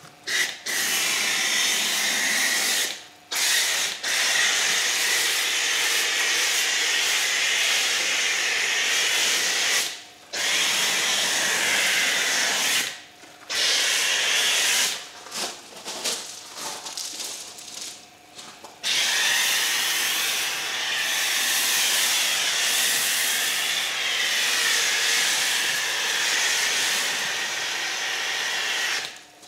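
Pressure washer spray hissing in a series of bursts that start and stop abruptly as the trigger gun is squeezed and released, with the longest spray near the end. The Kranzle K7 pressure washer sprays water onto a foam-covered car.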